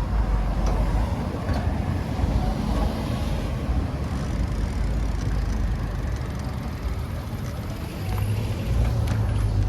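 Street traffic noise: a steady low rumble of passing vehicles, swelling a little near the end.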